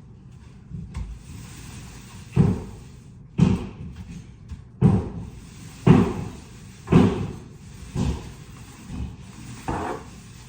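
Paint roller pushed up and down a wall, giving a dull thud with each stroke, about one a second.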